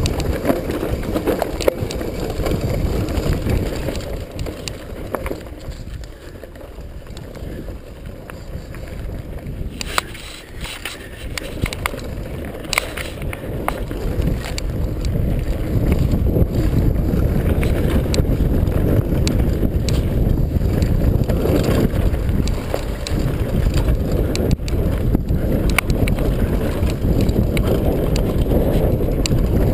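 Downhill mountain bike ridden fast over a rocky dirt trail: a steady low rumble of tyres and wind on the microphone, with scattered rattles and knocks from the bike. It eases for a few seconds near the middle and grows louder again from about halfway.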